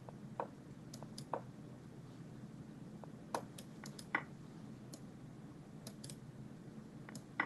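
Computer mouse clicking, about a dozen short, sharp clicks in irregular clusters, as chess moves are made in an online blitz game. A faint steady hum sits underneath.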